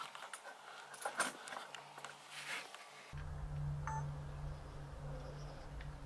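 Handling noise in a hunting blind: scattered clicks and rustles as gear and a camera are handled. About three seconds in, the sound cuts to a steady low hum with one short beep about a second later.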